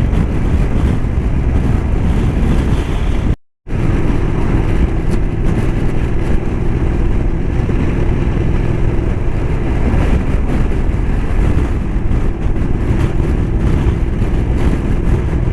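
Motorcycle riding at road speed: wind rushing over the microphone over a steady engine note. The sound drops out for a split second about three and a half seconds in.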